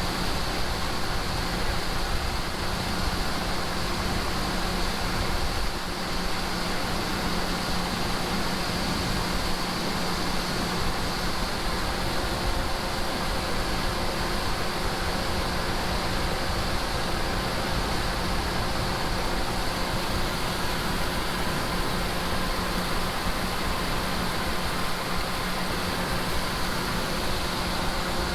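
Large farm tractor's engine running steadily at constant speed under harvest work, an even hum with a steady drone and no changes.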